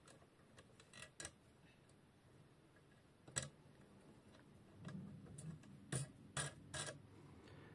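Faint, scattered small metal clicks and taps from hands handling the clamps of a knife-sharpening jig: a couple about a second in, one in the middle, and three in quick succession near the end.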